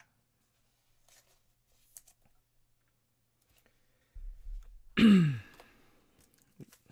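A couple of faint clicks as trading cards are handled and laid down, then about five seconds in a single loud cough from a man, dropping in pitch over about half a second.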